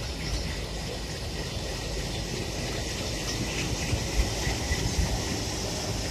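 Freight train's hopper wagons rolling past on the track with a steady rumble. About four seconds in, an Indian Railways diesel locomotive comes alongside, adding its engine noise, with a few short clanks.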